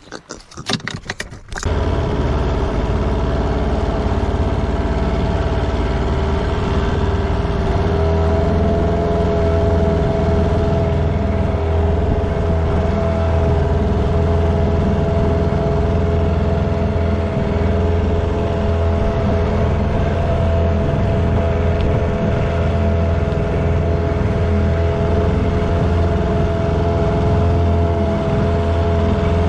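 An engine running steadily with a deep hum, its pitch stepping up slightly about eight seconds in.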